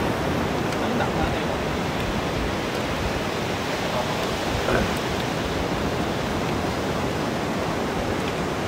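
Steady rushing of sea surf and wind, with faint voices under it.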